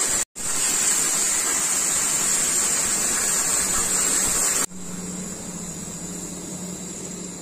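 CNC oxy-fuel flame-cutting torch hissing steadily as it cuts steel plate. The sound breaks off for a split second just after the start, and about four and a half seconds in it drops abruptly to a quieter hiss with a low hum under it.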